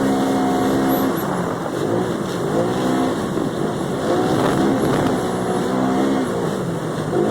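Polaris XP 1000 side-by-side's engine running under throttle, its pitch rising and falling every second or two as it speeds up and eases off.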